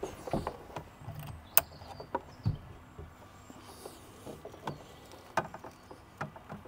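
Clear plastic hose and its fittings being handled and uncoiled, making scattered light clicks and knocks at irregular intervals.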